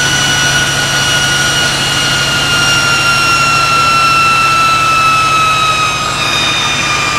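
GE Class 70 PowerHaul diesel-electric locomotive's V16 engine running hard during a stationary self-load test, with a loud steady roar and a high whine that slowly falls in pitch.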